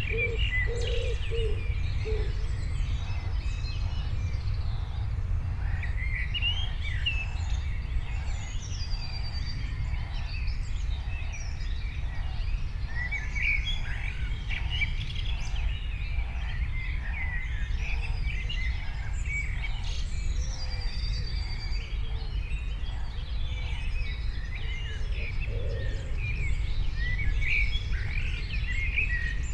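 Several birds chirping and singing outdoors, short high calls and trills overlapping throughout, over a steady low rumble. A few lower notes sound near the start.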